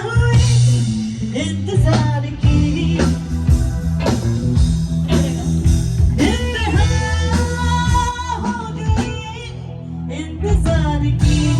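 A band playing during a sound check: guitar, drum kit and a singing voice, loud and continuous.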